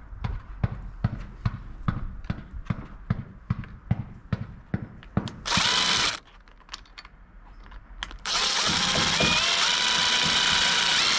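Cordless drill-driver driving self-drilling roofing screws: a short burst about halfway through, then a longer run from about eight seconds in that steps up in pitch. Before that, a quick run of light clicks, about four a second.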